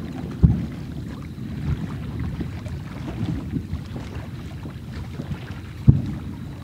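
Aerial firework shells bursting over a lake, two sharp booms standing out over a continuous low rumble: one about half a second in and one near the end.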